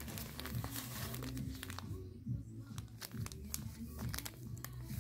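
Background music, with the crinkling of plastic bags of powdered concrete pigment being picked up and handled.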